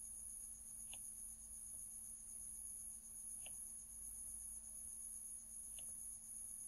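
Faint room tone with a steady high electronic whine and a low hum from the recording setup, broken by three faint computer mouse clicks spaced a couple of seconds apart.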